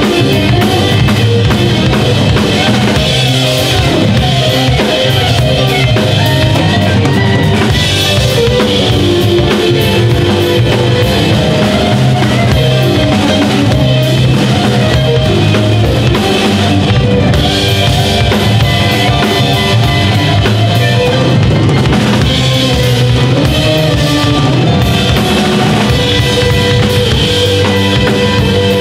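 Live band playing an instrumental passage: drum kit, Roland stage piano, electric guitar and bass guitar.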